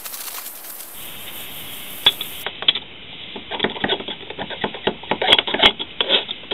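Light metal-on-metal clicks and scraping as a wire is worked into the small ports of a Belarus 250AS centrifugal oil filter rotor to clear them of crud. The clicks start about two seconds in and come thick and fast in the second half.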